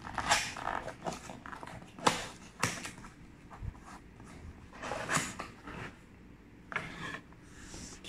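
Fingers scratching and picking at a cardboard box, then pulling open a cardboard flap: irregular short scrapes and rustles of cardboard, a few of them sharper.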